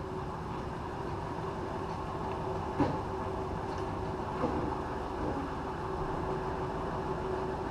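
Steady rush of rain with an even hum underneath and two sharp taps near the middle.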